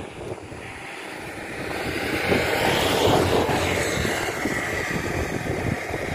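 A road vehicle passing by. Its engine and tyre noise swells over the first three seconds or so and then fades, with a faint whine that drops in pitch as it goes past.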